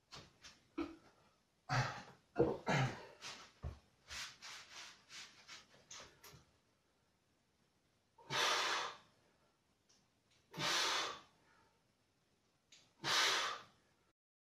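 A run of short knocks and rustles over the first six seconds as a man settles onto a chair with dumbbells, then three loud, forceful exhalations about two and a half seconds apart, breathed out hard with each seated dumbbell biceps curl.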